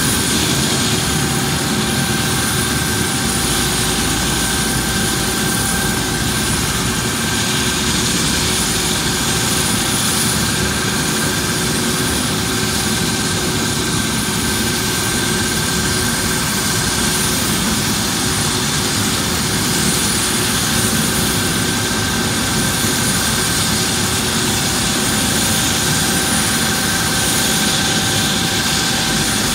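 Light turbine helicopter running at ground idle: a steady turbine whine over a constant rushing noise.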